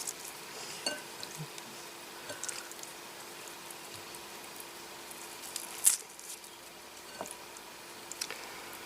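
Faint, scattered crackles and ticks from a bed of wood embers with skewered beef cooking over them, with one sharper crack about six seconds in, under a faint steady hum.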